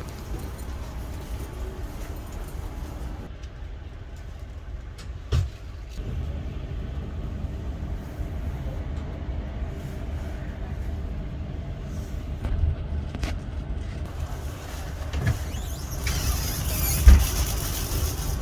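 Steady low rumble inside a stationary double-deck electric train, with a couple of sharp knocks and a brief hiss near the end.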